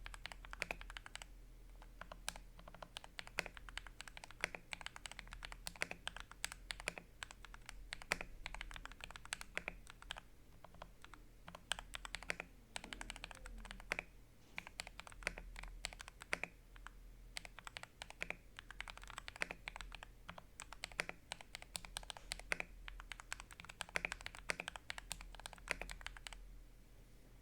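Typing on a Fantech Maxfit 61 60% mechanical keyboard with an acrylic case, stock keycaps and pre-lubed Akko CS Radiant Red linear switches: a fast, steady run of keystrokes that stops about a second before the end.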